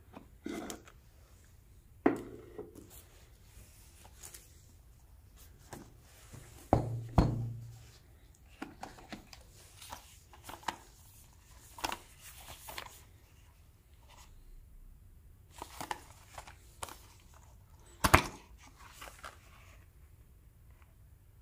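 Cardboard phone box and its plastic wrap being handled and opened: rustling, scraping and light clicks, with three louder knocks, the loudest late on.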